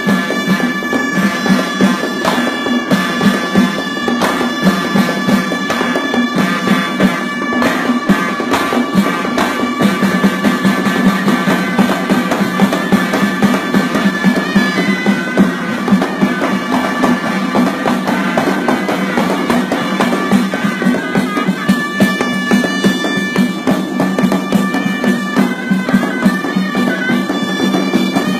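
Moroccan Issawa ensemble of ghaita shawms playing a loud, reedy held melody over fast hand-drum beats. The melody moves to new notes about halfway through and again near the end.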